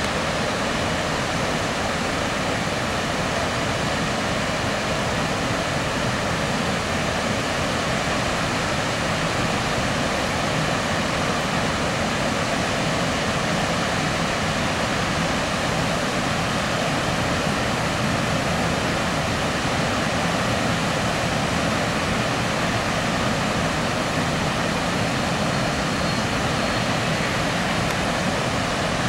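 Upper Falls of the Genesee River rushing, a steady, even roar of falling water that does not change.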